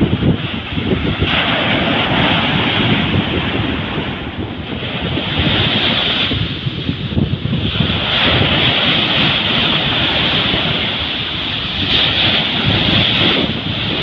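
Ocean surf breaking and washing up a sandy beach in a continuous hiss of water and foam that swells and eases several times as the waves rush in. Wind buffets the microphone with a choppy low rumble.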